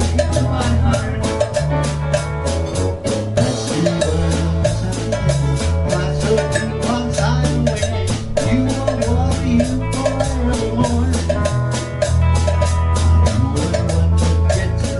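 A small band playing live: a drum kit keeps a steady beat under electric guitar and a moving bass line.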